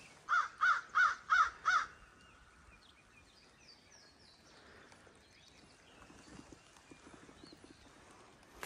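A bird calling five times in a quick, even series, each call short with a rise and fall in pitch. Faint distant birdsong follows.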